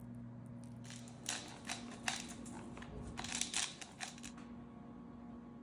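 Table knife scraping ricotta across crisp toasted bread slices: a run of short, dry scrapes starting about a second in and stopping a little after four seconds, over a faint low hum.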